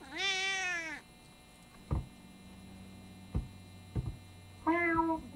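An actor's imitation of a cat meowing, played back from a cartoon. One long meow rises and falls over the first second, then come three short thumps and a shorter meow near the end, over a steady electrical hum.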